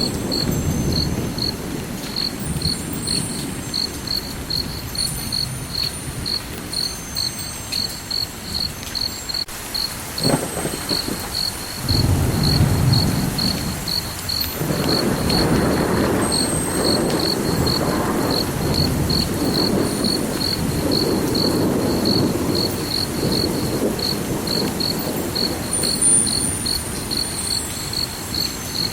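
A cricket chirping steadily, about two to three even chirps a second, over a low rumble like distant thunder that swells about twelve seconds in.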